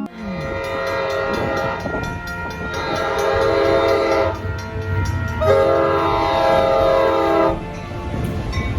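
Diesel locomotive's multi-chime air horn sounding over the rumble of a passing train: a fainter blast first, then two long, loud chords of about two seconds each.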